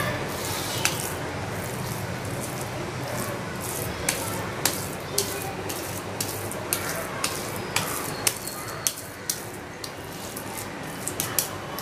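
Back of an oiled metal ladle pressing and smoothing soft moru kali dough across a steel plate: irregular light clicks and scrapes of metal on metal, over a steady background hiss.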